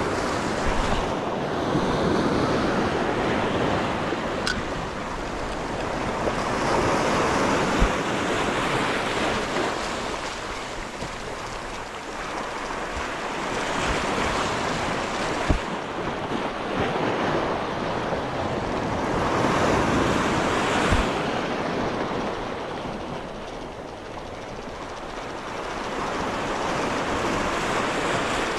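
Surf washing in over a rocky shore, swelling and fading in slow surges every five or six seconds, with a few brief knocks between them.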